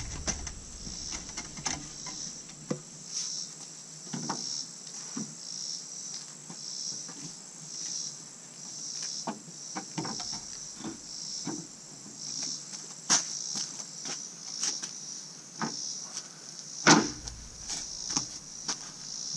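Insects calling in a high-pitched pulse that repeats a little more than once a second, over a steady high whine that stops about two-thirds of the way through. Scattered wooden knocks and clatter from oak shelf-frame parts being handled, the loudest near the end.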